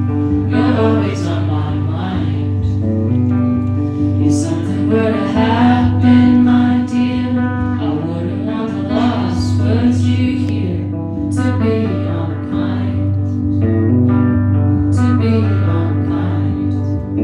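Live solo performance of an indie rock song: a woman singing into a microphone while playing guitar, with sustained low guitar notes under the vocal phrases.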